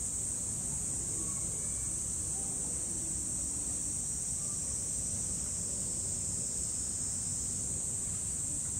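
Steady high-pitched drone of insects, unbroken, over a low background rumble.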